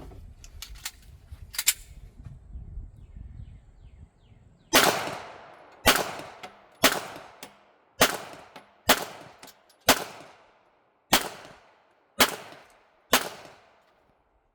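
A semi-automatic pistol fires nine shots, about one a second, each with a ringing echo. Before the shots there is a few seconds of low handling noise and light clicks.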